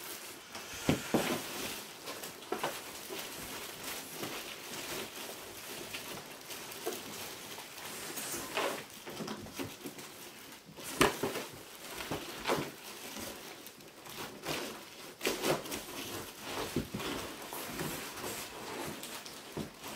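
A large cardboard box being handled and shifted on a desk: rustling and scraping of cardboard, with several scattered knocks.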